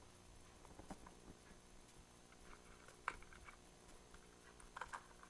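Faint, scattered clicks and taps of small parts being fitted on a GoPro housing as its replacement lens and retaining ring go into place, the clearest about three seconds in and a few more near the end.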